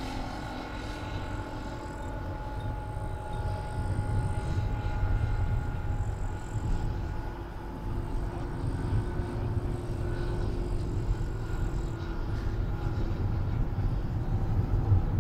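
Radio-controlled scale model Dewoitine D.26 in flight: its engine and propeller give a steady drone whose pitch shifts slowly, over a constant low rumble.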